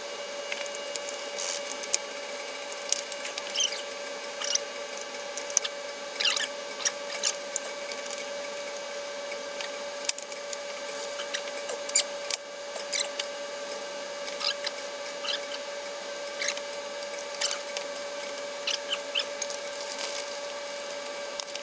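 Many short clicks and clinks of 10R80 transmission clutch plates and parts being handled and restacked, over a steady high tone.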